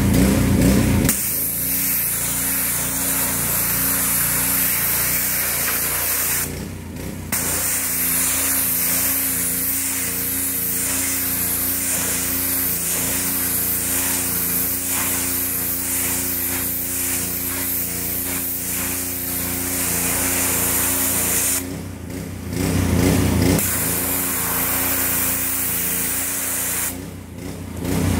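Engine-driven pressure washer running steadily while its water jet hisses onto a fabric patio cushion. The spray cuts out briefly three times, about six and a half seconds in, around twenty-two seconds in and near the end, leaving the engine running on its own.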